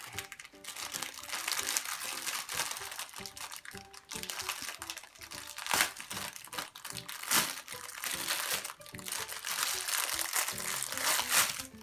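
Plastic packaging crinkling and crackling as a small toy is handled and unwrapped, with the loudest crackles about six, seven and eleven seconds in. Background music plays underneath.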